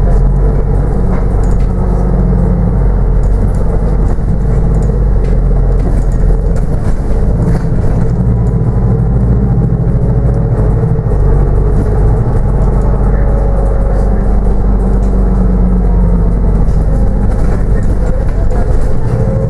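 Cabin noise inside a New Routemaster diesel-electric hybrid bus on the move: a loud, steady low drone of engine and road rumble, with faint tones above it that drift slightly up and down.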